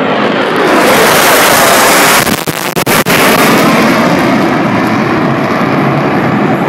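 A formation of four F-16 fighter jets flying low overhead, a loud jet roar that swells about a second in and briefly cuts out a few times near the middle.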